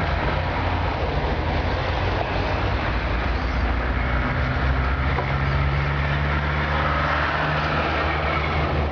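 Electric motor and gears of an Axial AX10 RC rock crawler whining as it creeps up over a boulder, the pitch shifting with the throttle, over a steady low rumble.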